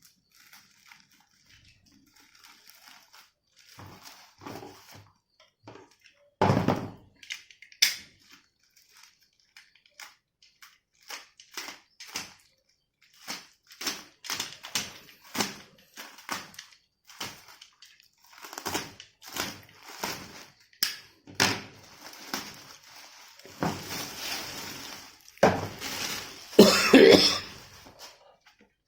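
Packaging being handled and opened by hand: irregular plastic rustling and crinkling with scattered knocks, loudest near the end.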